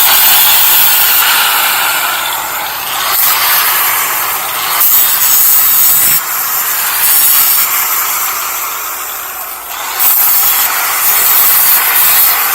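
A small sheet-steel patch piece being ground to fit. It gives harsh rasping noise in bursts that stop and start sharply several times.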